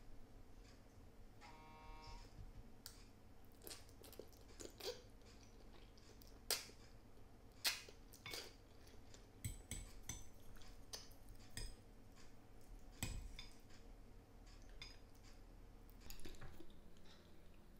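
Quiet eating sounds: a metal fork and spoon clicking and scraping on a ceramic plate while twirling spaghetti, with soft chewing in between. A brief squeak sounds about two seconds in.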